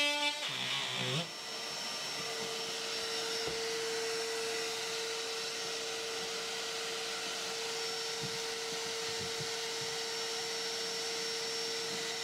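A cordless power tool winds down and stops about a second in. Then a vacuum runs steadily, a noisy drone with a single held hum.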